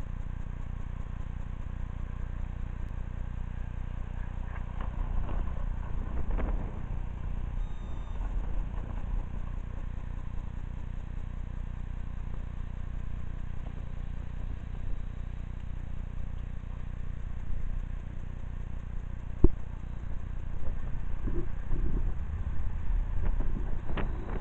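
Steady low engine rumble with a low hum, with a single sharp click late on.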